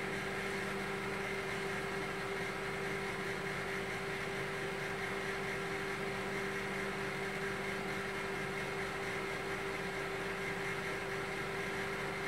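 Sharp Carousel microwave oven running: a steady hum with a few held tones.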